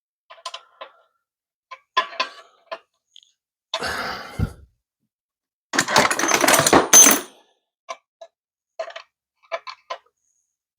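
Metal parts and tools being handled during clutch hydraulic line fitting work: scattered light metallic clicks and clinks, a short rattle about four seconds in, and a longer, louder rattle from about six seconds.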